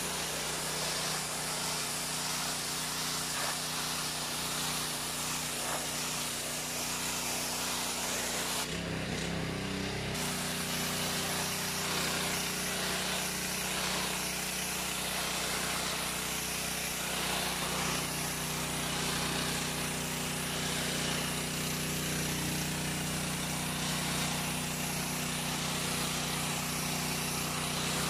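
Ferrex petrol pressure washer running steadily, its engine hum under the hiss of the high-pressure spray on paving stones. The sound is briefly interrupted about a third of the way through.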